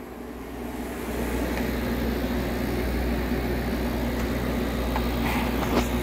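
Hisense portable air conditioner running with its compressor on, a steady low hum with a few steady tones. The compressor runs again on a newly fitted start capacitor; a failed capacitor had left it unable to start.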